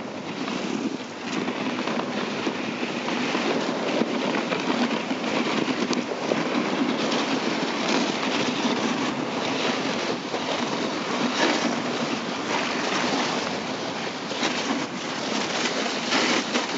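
Dog sled runners sliding over snow while the husky team pulls, a steady scraping hiss that swells in the first couple of seconds.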